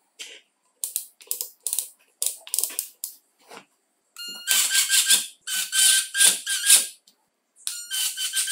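A series of sharp mechanical clicks, then a cordless impact driver running in short trigger bursts, each about half a second to a second long, with a steady motor whine over a loud rattling din.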